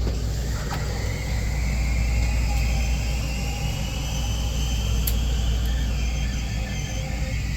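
RV slide-out motor running, moving the two daisy-chained living-room slide-outs together on one button: a whine that rises slowly in pitch for about six seconds, then falls away, over a steady low hum.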